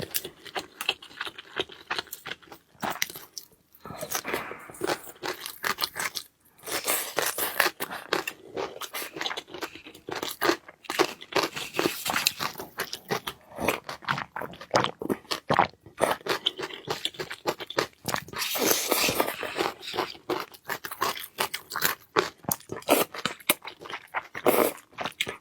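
Close-miked eating sounds: a person chewing and biting into food, with dense, irregular crunchy crackles and wet mouth clicks that pause briefly a few times.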